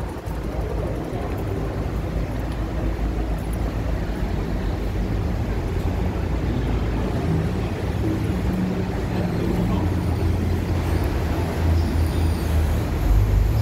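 Steady low rumble of road traffic and vehicle engines, with no distinct events, growing louder near the end.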